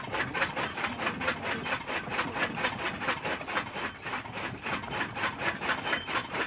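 Cast-iron gearing of a bull-driven animal-power gear clattering in a fast, even rhythm, about five clacks a second, as the bull walks the beam round to drive a fodder chopper.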